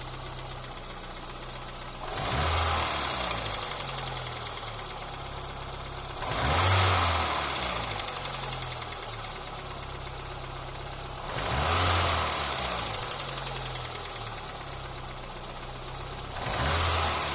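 Engine idling and revved four times, each rev rising quickly and falling back to idle over a few seconds, with a rapid knocking that quickens and grows louder with the revs. It is an unexplained knock in the engine whose cause the owner does not know.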